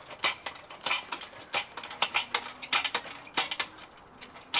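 Hand winch on an engine crane cranked to hoist a load on a chain: irregular sharp metallic clicks of the ratchet and chain, about three or four a second.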